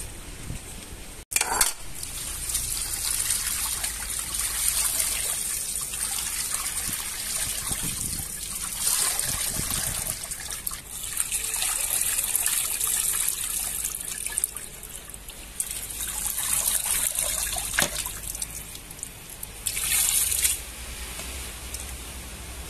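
Water poured from a jug over raw chicken hearts in a plastic colander, splashing and draining through while hands rub and turn the meat; the pouring comes in several surges.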